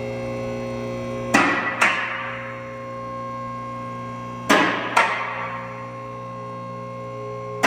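Warning chime of a Nissan 300ZX (Z31), ringing in pairs of strikes about half a second apart and repeating about every three seconds, over a steady hum.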